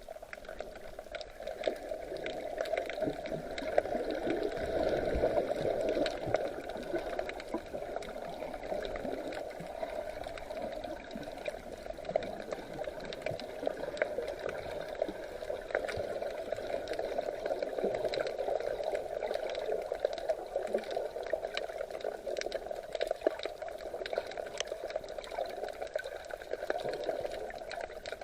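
Seawater sloshing and bubbling steadily, with many small crackling clicks throughout.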